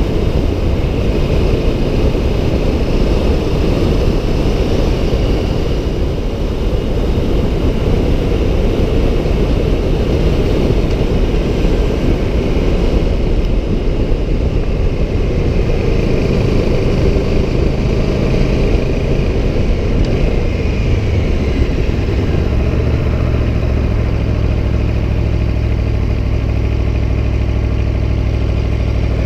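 Aprilia Tuono 1100 Factory's V4 engine running under way, a dense low rumble mixed with rushing noise. From about two-thirds of the way through, the engine settles at steady revs.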